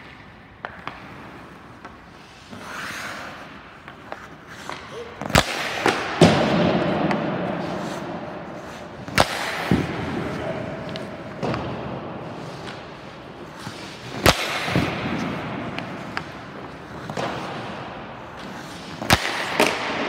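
Ice hockey shots: a stick cracking against a puck four times, about every four to five seconds, echoing in an indoor rink, with skate blades scraping the ice in between.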